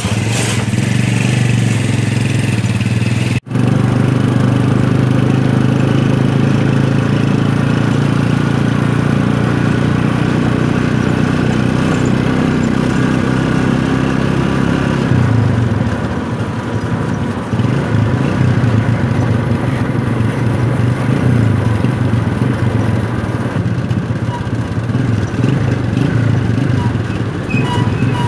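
Engine running and road noise of a vehicle in motion, heard from on board. It is a steady low hum with a brief cut a few seconds in, and the engine note changes about halfway.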